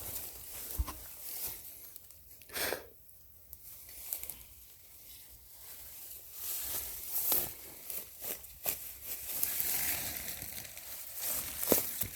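Irregular rustling and crackling of forest undergrowth and leaf litter as someone moves and handles plants, with a louder rustle about three seconds in, a run of crackles in the second half and a sharp snap near the end.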